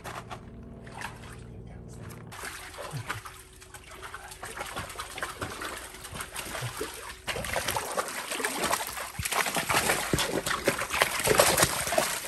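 A dog splashing and pawing at a floating ball in a shallow collapsible pool: irregular splashing and sloshing of water that starts faint a couple of seconds in and grows louder and busier about seven seconds in.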